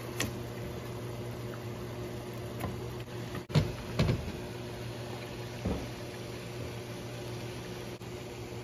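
Raw beef chunks dropped into a pot of simmering curry sauce: a few soft thuds and wet plops, the loudest about three and a half to four seconds in, over a steady low hum.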